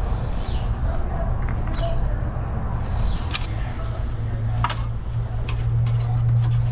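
Light clicks and taps as a wire is pulled along the plastic cowl trim of an engine bay, over a steady low hum that grows louder in the second half. Short high chirps come in the first half.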